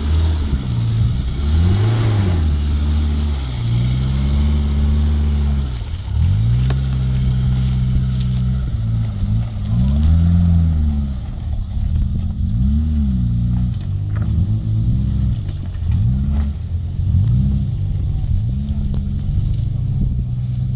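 Off-road 4x4's engine revving up and down again and again as it crawls over loose rocks on a steep trail, the pitch rising and falling every second or two.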